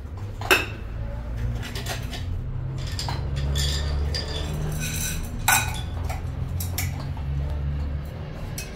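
Pots and dishes clattering and clinking as they are handled, with two sharper knocks, about half a second in and about midway, over a steady low rumble.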